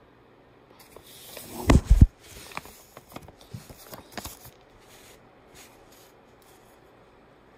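Handling noise: a paper banknote being rubbed and crumpled close to the recording phone, with a couple of heavy thumps about two seconds in and scattered small clicks and rustles after them.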